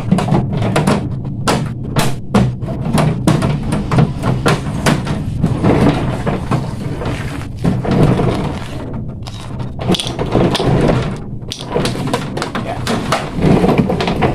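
Plastic clattering and clicking as the rear grille and cooling-pad frame of a 3D evaporative air cooler are handled and pressed back into place, with many short irregular knocks over a steady low hum.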